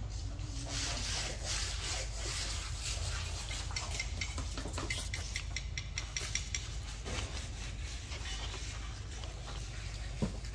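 Soft scraping and rubbing with many small clicks as a young pig-tailed macaque licks and picks food off a tiled floor, over a steady low rumble. A single short, louder knock comes near the end.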